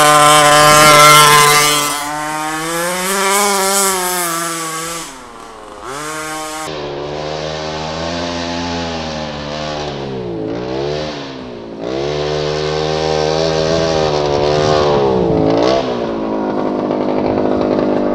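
The 26cc two-stroke petrol engine of a 1/5-scale Rovan RC sport truck running at speed, its pitch repeatedly rising under throttle and dropping away, with deep dips in pitch about five, ten and fifteen seconds in. It is loudest in the first two seconds.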